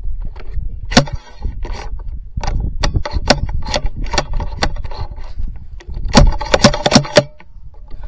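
Handling noise on a rifle carrying a scope-mounted camera as the rifle is swung across the hillside: a string of sharp clicks, knocks and scrapes over a low rumble. The clatter is busiest about six to seven seconds in.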